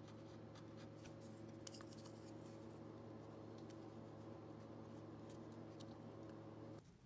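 Near silence: a faint steady hum with a few light clicks of small wooden strips and a plastic square being handled on a workbench. The hum cuts off just before the end.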